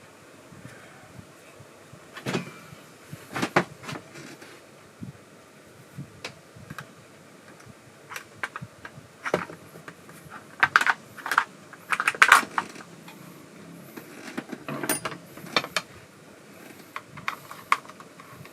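Irregular metallic clicks, knocks and rattles of chainsaw parts and tools being handled during assembly, busiest and loudest about ten to twelve seconds in.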